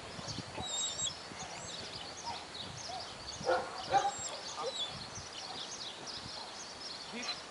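Birds chirping throughout, with two short, louder calls or yelps about three and a half and four seconds in.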